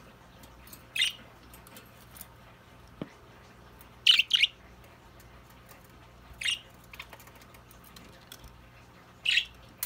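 Pet budgerigars giving short, sharp chirps a few seconds apart, with a quick pair of chirps about four seconds in.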